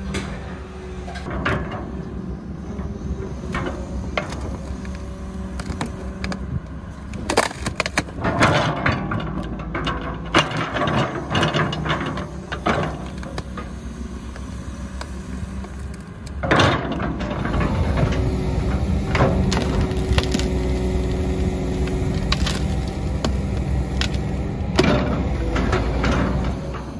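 Excavator's diesel engine running steadily under load, with bursts of clanks and rattles as rock and soil are loaded into a dump truck. The clattering is busiest around the middle, with a loud knock just past halfway.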